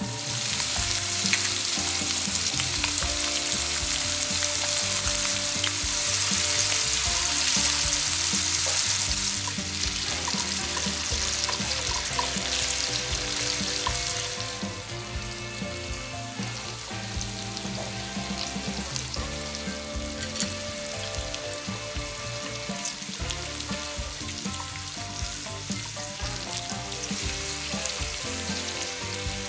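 Chicken thigh pieces sizzling in hot oil in a frying pan, turned now and then with chopsticks. The sizzle is loudest for the first nine seconds or so, then settles to a quieter, steady frying.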